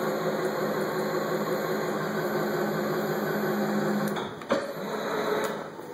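The Sharp knee mill's VFD-driven three-phase power knee lift motor running steadily, moving the knee with a gear hum. It stops about four seconds in, followed by a click or two.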